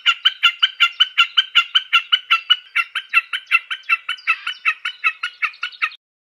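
A snipe calling: a rapid, steady series of short high notes, about seven a second, that cuts off suddenly near the end.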